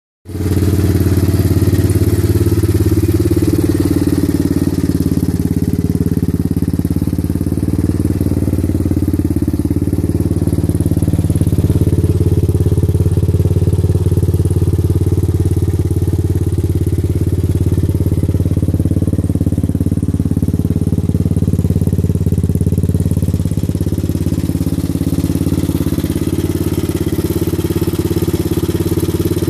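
1983 Honda XR350R's air-cooled single-cylinder RFVC four-stroke engine idling steadily.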